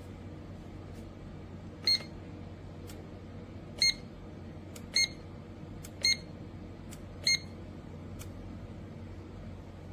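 Electric kettle's touch control panel beeping as its buttons are pressed: five short, high beeps spaced about a second or two apart, with a few faint clicks between them.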